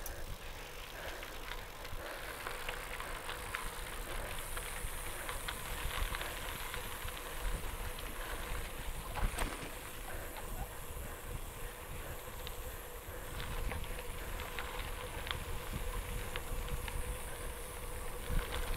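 Bicycle tyres rolling over a gravel road: a steady crunch full of small clicks from loose stones, with wind rumbling on the microphone.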